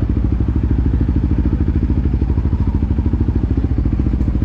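Four-wheeler (ATV) engine idling steadily with a fast, even putter.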